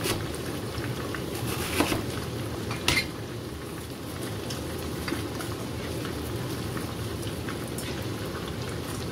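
Pieces of milkfish and sea fish frying in hot oil in a pot, with a steady sizzle throughout. A couple of sharp knocks come about two and three seconds in as cabbage is chopped with a cleaver.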